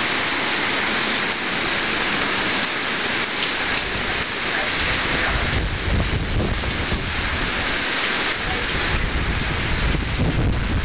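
Heavy tropical-storm rain, a dense steady hiss, with wind gusts rumbling on the microphone from about halfway through.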